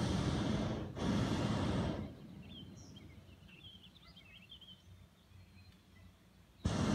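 Hot air balloon's propane burner firing in blasts of about a second: two back to back at the start and another starting near the end. Birds chirp in the gaps.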